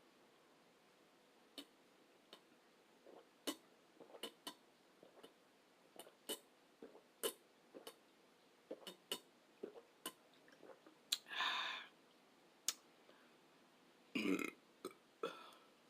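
Close-up eating sounds: scattered short clicks and smacks of chewing, a longer airy sound about eleven seconds in, and a burp near the end.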